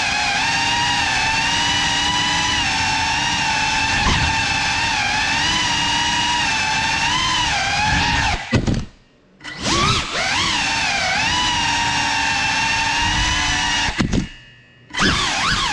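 Brushless motors and propellers of a 6S Cinelog 35 cinewhoop FPV drone whining as it flies, the pitch wavering with throttle. The whine cuts out twice, each time for about a second, and spools back up with a rising swoop.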